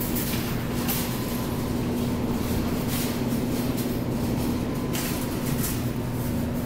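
Steady machine and ventilation hum beside a claw crane machine, holding a low tone and a fainter high tone throughout, with a few soft clicks.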